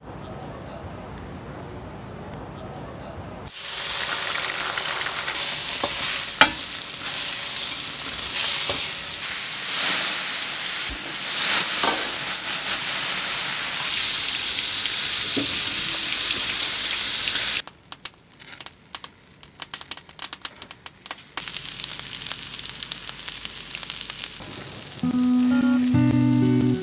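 Battered food deep-frying in a pan of hot oil, a steady loud sizzle that sets in suddenly a few seconds in. About two-thirds of the way through it gives way to sparse crackling and popping. Acoustic guitar music comes in near the end.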